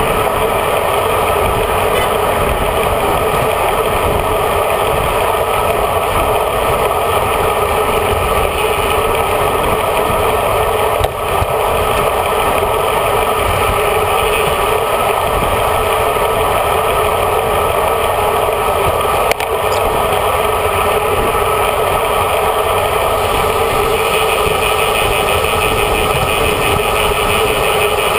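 Steady wind rush and tyre-on-road noise picked up by a handlebar-mounted GoPro Hero HD in its housing on a moving road bicycle, with two brief knocks about a third and two-thirds of the way through.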